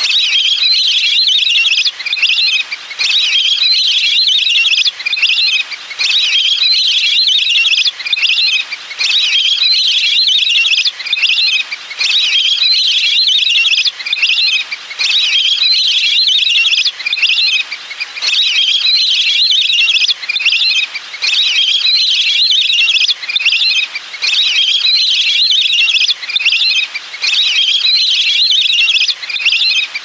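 A flock of lesser whistling ducks (le le nâu) calling, a dense, high-pitched whistled chatter that runs almost without pause, with brief breaks every second or few.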